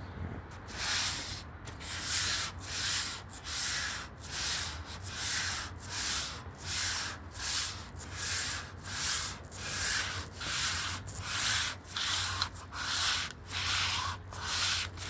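Sandpaper on a hand sanding block being rubbed back and forth over the white primer on the back of a guitar body, in even strokes of about one and a half a second.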